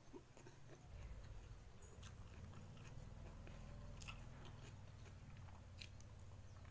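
Faint, close-up chewing and soft mouth clicks of someone eating rice and sambal petai by hand, over a low steady hum that comes up about a second in.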